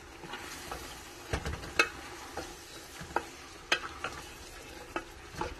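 A wooden spoon stirs chopped spinach and lamb in an aluminium pressure cooker pot, knocking against the pot's side now and then at irregular intervals. Under it the masala sizzles faintly in the oil.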